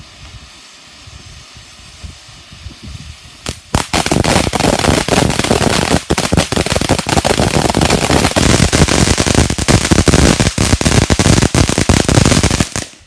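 Novelty clown firework going off: after a couple of pops about three and a half seconds in, a loud, dense, rapid crackle of small bangs runs for about nine seconds and then cuts off suddenly.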